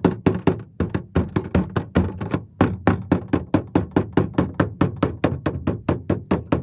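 Rapid hammer blows, about four to five a second, with two brief pauses in the run.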